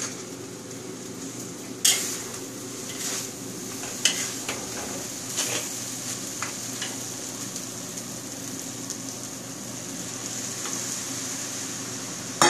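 Hokkien noodles sizzling in a wok over high heat as they are stir-fried, with sharp clicks and scrapes of the utensils against the pan now and then. The loudest click comes about two seconds in.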